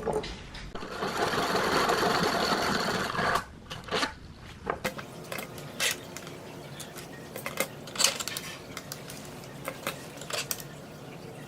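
A small power tool runs steadily for about three seconds, then stops, followed by scattered light clicks and taps of small metal parts being handled.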